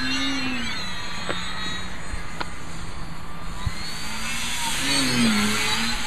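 Brushless electric outrunner motor and 12x6 propeller of a foam RC plane buzzing in flight, its pitch sliding up and down as the throttle changes, over wind rushing on the microphone.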